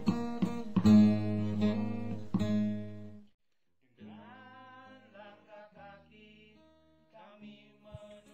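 Acoustic guitar music with regular strums, which cuts off abruptly about three seconds in. After a brief silence a much quieter tune follows, with a single sharp click near the end.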